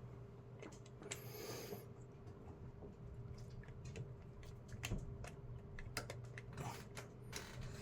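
Faint, irregular small clicks and taps of a screwdriver working the terminal screw on a duplex light switch to free a wire, with a brief scrape about a second in.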